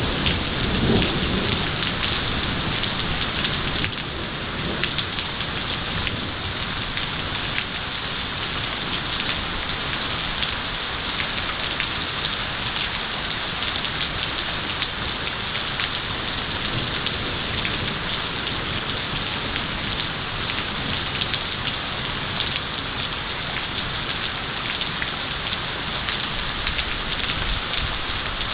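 Heavy thunderstorm rain falling steadily and densely, with many small drop impacts. A low rumble of thunder fades out in the first few seconds.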